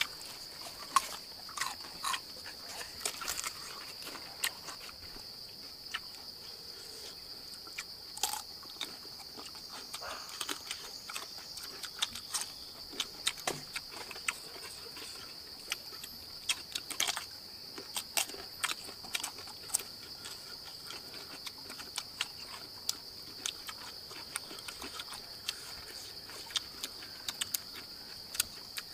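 Close-up eating and chewing: frequent short smacks and crunches, over a steady high insect drone.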